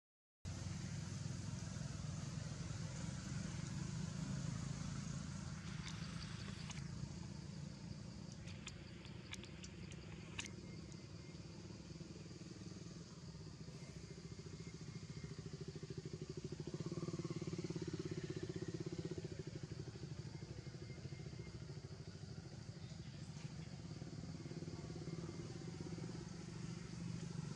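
Steady low drone of an engine running, with a few faint clicks about a third of the way in.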